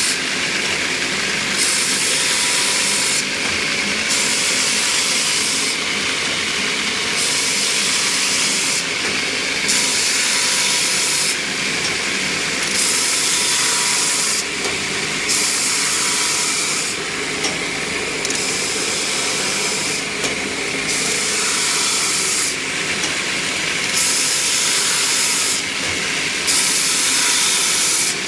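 Abrasive 3B surface grinder converted to a belt grinding head, running steadily with a hum while its abrasive belt grinds a workpiece. The grinding hiss comes and goes about every two to three seconds, as the work passes under the belt again and again.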